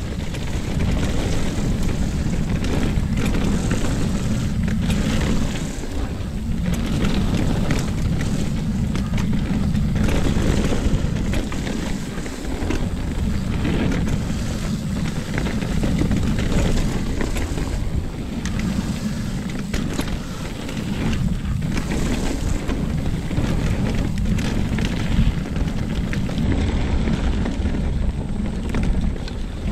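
Wind rushing over a chest-mounted action camera's microphone as a mountain bike runs fast downhill on dirt, with steady tyre noise and frequent short knocks and clatter from the bike over braking bumps.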